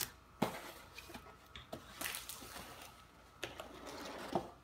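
Cardboard box being handled by a child's hands: scattered light taps and scrapes on the cardboard, with a brief rustle about two seconds in.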